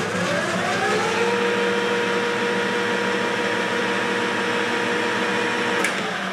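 Enco metal lathe with a geared headstock running in reverse at its top spindle speed of 1150 rpm: the gear whine rises over the first second as the spindle spins up, then runs steady. Near the end there is a click as it is switched off and the whine falls as the spindle coasts down.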